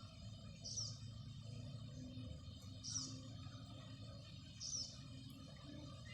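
A bird calling a short, falling high note three times, about two seconds apart, over a steady low background noise.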